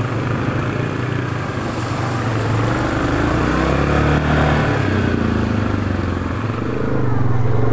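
ATV engine running under way, its note rising and falling with the throttle and growing louder near the end.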